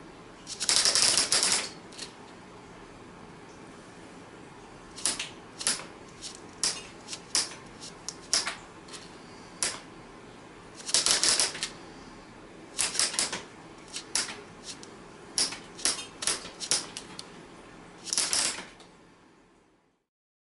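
Hand-worked TwistMek rubber band gun mechanism clicking: four rapid rattling bursts of clicks with single clicks scattered between them, as the firing pins are pressed and spring back.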